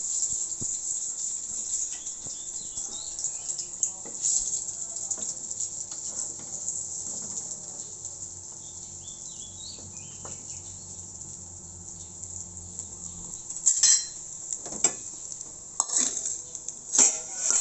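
Pre-boiled fish frying in oil in a wok, hissing faintly, while a metal spatula scrapes and turns the pieces. In the last few seconds come several sharp metal clatters of spatula on wok and dish as the fried fish is lifted out.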